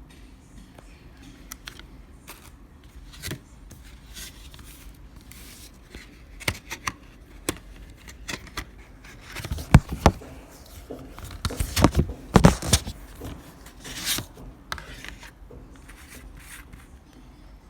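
Hands handling and opening CD and DVD packaging: scattered clicks, scrapes and rustles, with a cluster of louder knocks and scrapes in the middle.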